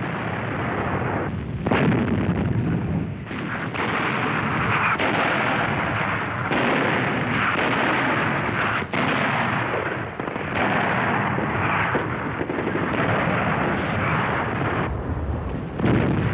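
Artillery fire from 75 mm light infantry guns: repeated shots and blasts over a continuous noisy rumble of battle, with the loudest reports about two seconds in and near the end.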